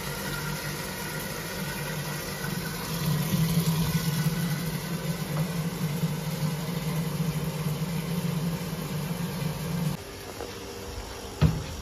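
A steady motor hum that cuts off abruptly about ten seconds in, followed by a single sharp knock near the end.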